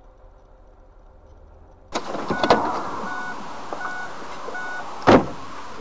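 Faint low street hum, then a cut to loud road and engine noise heard inside a moving car on a motorway. A short electronic beep repeats about every 0.7 s, and a single loud thump comes about five seconds in.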